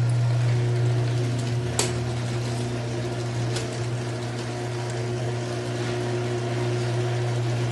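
Garage door in motion, its opener motor giving a steady low hum, with a few light ticks and one sharper click about two seconds in. The door is running quietly after servicing.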